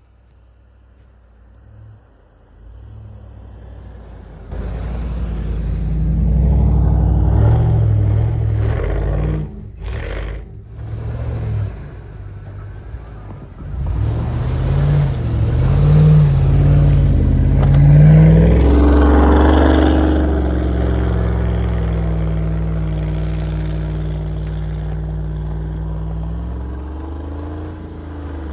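Car engine revving hard in repeated bursts, its pitch climbing and dropping, with a rushing noise over it, as the car tries to drive out of snow it is stuck in; the revs fall away near the end.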